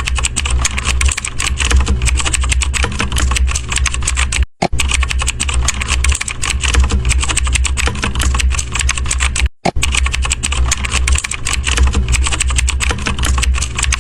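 Fast, continuous typing on a computer keyboard, with a low rumble underneath. The clicking breaks off for an instant twice, about four and a half and nine and a half seconds in, as the same clip repeats.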